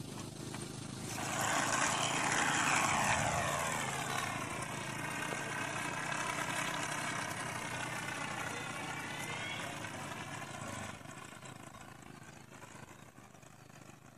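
Propeller of a rubber-powered Prairie Bird model plane buzzing as it flies. The buzz starts about a second in and is loudest soon after, its pitch drifting slowly. It fades out after about eleven seconds.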